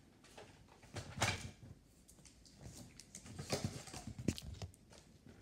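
Plastic clicks, rattles and knocks of a Nerf foam-dart blaster being handled and reloaded, with sharper knocks about a second in and again around four seconds in.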